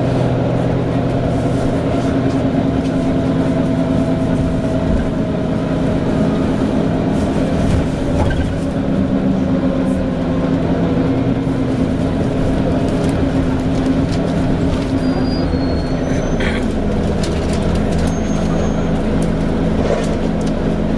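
Volvo B9TL double-decker bus heard from inside, on the move: its diesel engine and drivetrain hum steadily, with a slight cooling-fan whine. A few brief high squeaks come in the second half.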